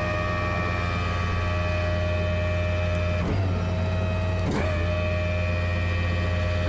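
Tow truck's winch running steadily with a motor whine as the messed-up winch line is spooled back onto the drum, stopping and restarting briefly twice, about three and four and a half seconds in.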